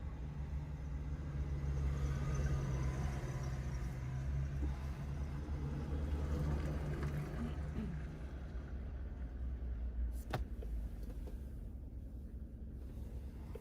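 Car engine running, a steady low hum that stops about eight seconds in, then a single sharp click about ten seconds in.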